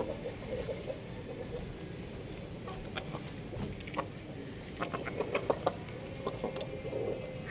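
Chickens pecking bread off a concrete floor: scattered sharp taps of beaks on the concrete, coming quickly in a cluster about five seconds in, with low soft clucking near the start and near the end.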